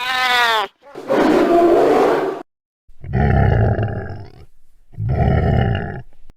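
A string of different animal calls. It opens with a short pitched call, then a rough growl, then two matching loud roar-like calls about two seconds apart.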